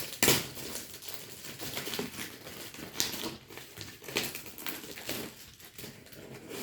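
Packaging being opened by hand: irregular rustling and crinkling of paper and cardboard, with louder rips or scrapes about a quarter second in and again about three seconds in.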